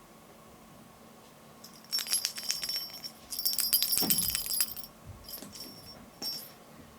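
Metallic jingling with a high, bell-like ring over quick clicks, in two bursts about two and three and a half seconds in, then a few lighter jingles near the end.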